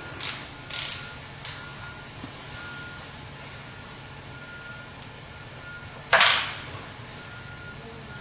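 Short scrapes and clicks of vinyl railing brackets and screws being handled and fitted, three quick ones at the start and one louder, longer scrape about six seconds in, over a low steady hum.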